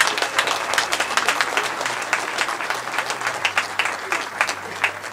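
Crowd applauding, many hands clapping, dying down toward the end.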